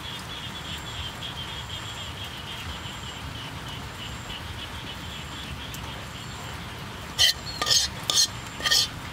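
Steady low background, then from about seven seconds in four sharp scrapes of a utensil against a metal wok as the last of the chili sauce is scraped out.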